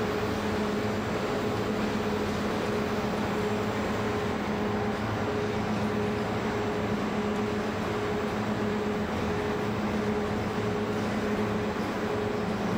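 Shot blasting machine for aluminium profiles (Gazzani GE-TS-4) running: a steady mechanical drone with a low hum and its higher overtone, over an even hiss.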